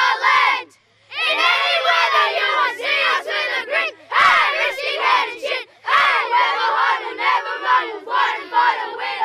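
A group of young boys chanting loudly together in a huddle, a team song or club chant shouted rather than sung, with short breaks between lines.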